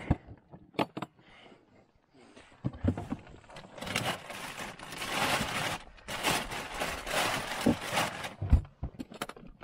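Handling noise: a few knocks, then two long stretches of scraping and rustling, each about two seconds.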